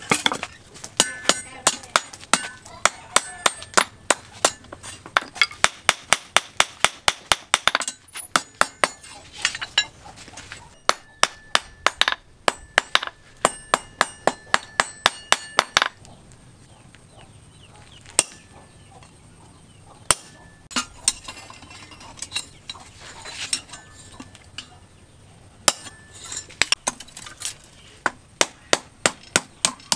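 Hand hammer striking red-hot steel prongs on a small iron stake anvil: quick ringing blows, about three to four a second, with a few short pauses and only scattered strikes through the middle before the steady hammering resumes.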